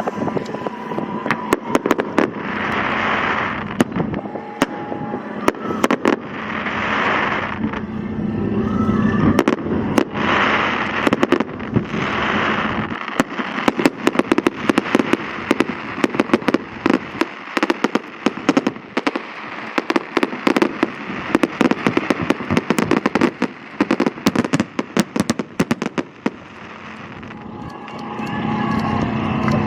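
Fireworks bursting over the sea: a string of sharp bangs and pops, with a few longer hissing swells in the first half and dense crackling through the middle. A steady low hum, the boat's engine, shows under it at the start and again near the end.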